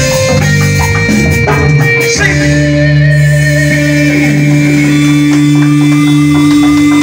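Live Latin band of congas, timbales, drums, electric bass and keyboard playing; about two seconds in they settle on one long held chord, the song's closing chord, with percussion hits ringing over it.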